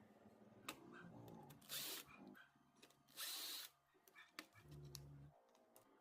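Small bench-tool noises from electronics repair work: two short hissing bursts, scattered clicks, and a brief low hum about five seconds in.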